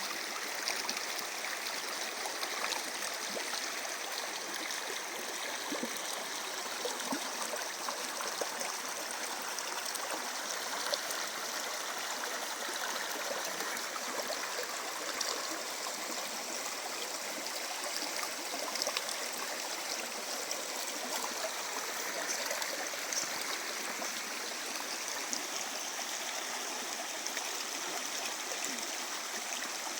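Small river flowing over stones, a steady gurgling and splashing of running water.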